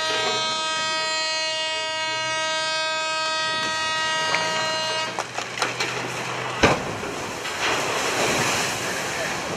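A horn sounds one long steady blast for about five seconds. Then the cargo ship's hull is side-launched off the slipway: a few knocks, a sharp bang, and the rushing splash of the hull tipping sideways into the water.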